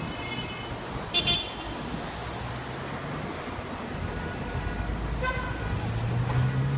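Busy city intersection traffic noise: a steady rumble of cars, buses and scooters. A short, high horn toot sounds about a second in and a brief lower tone about five seconds in, and a vehicle engine note grows louder and rises slightly near the end.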